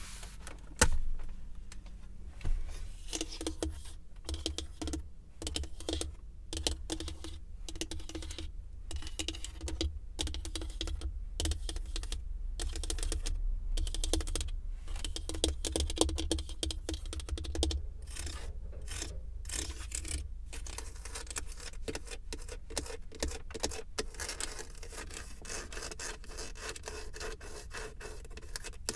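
Fingertips and nails tapping and scratching on a car's surfaces for ASMR: quick, irregular clicking taps with some scratching, over a low steady rumble.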